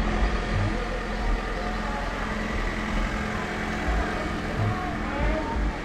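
Steady rumble and hiss of an idling vehicle engine, with faint voices in the background near the end.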